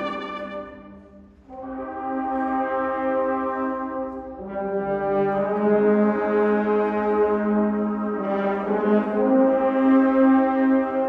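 Brass band playing a slow passage of held chords in a reverberant church. A chord dies away in the first second, the brass comes back in softly about a second and a half in, and the chord grows fuller as lower instruments join a few seconds later.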